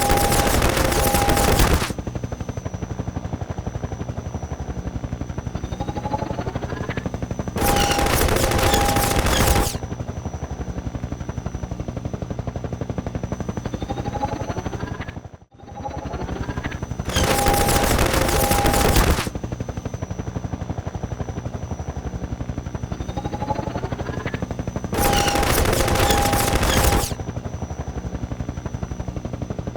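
Machine-gun fire in four bursts of about two seconds each, over a steady, fast-pulsing mechanical drone.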